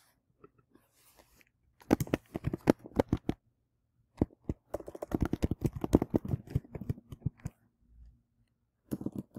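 Typing on a computer keyboard: two runs of quick keystrokes, a short one about two seconds in and a longer one from about four seconds to seven and a half.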